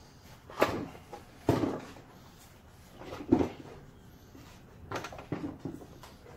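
Metal clunks and knocks from the disassembled cast turntable and base of a Delta compound miter saw being turned and shifted by hand: about six separate knocks, the loudest about three seconds in.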